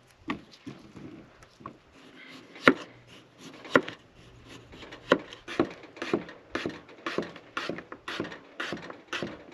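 Chef's knife slicing raw potatoes on a wooden cutting board: sharp knocks of the blade hitting the board, a few scattered ones at first, then a steady run of about two a second through the second half.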